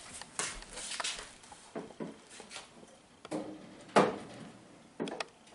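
Metal bakeware clattering as a loaf pan on a cookie sheet is set into a countertop toaster oven: a string of separate light knocks, the loudest about four seconds in.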